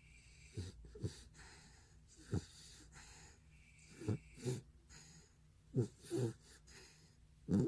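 Sleeping retriever dog snoring: short, wheezy snorts, mostly in pairs, repeating every second and a half to two seconds, with the loudest pair near the end.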